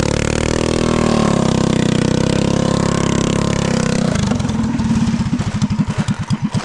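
Mini trike's small gas engine held at high revs, then dropping sharply about four seconds in to a low, lumpy idle with distinct firing beats.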